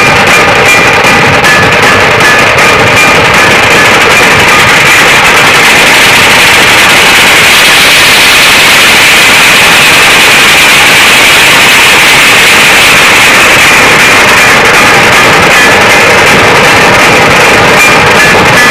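A dhol-tasha troupe playing: many dhol barrel drums beaten together with sticks in fast, massed rhythm, with tasha drums. It is very loud, near the top of the recording's range, with the individual strokes clearest near the start and the end and blurring into one continuous din in the middle.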